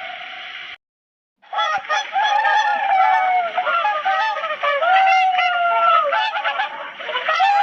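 Baby spinosaurus sound effect: many overlapping goose-like honking calls that slide up and down in pitch. They start after a brief silence about a second in.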